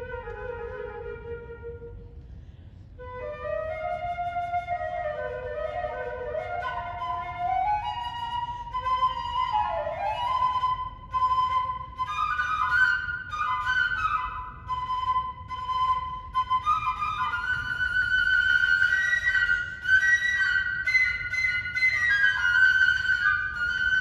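Solo flute playing a melodic line. After a brief pause near the start it moves up through a run of notes into the upper register and gets louder toward the end.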